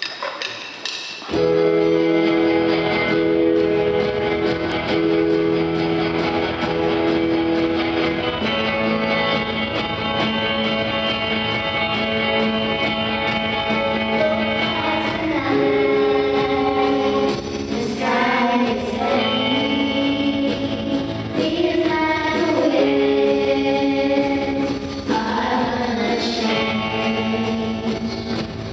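Live worship music: held chords enter about a second in, and voices singing a hymn with the instruments come in about halfway through.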